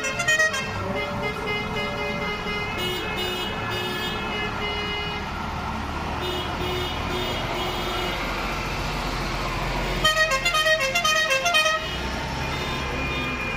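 A parade convoy of vehicles driving past, with a truck's diesel engine rumbling and horns sounding held toots at changing pitches. A fast run of short horn blasts comes about ten seconds in.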